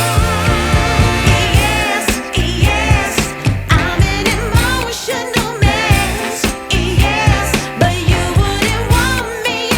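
Background pop music: a song with sung vocals over a steady drum-and-bass beat.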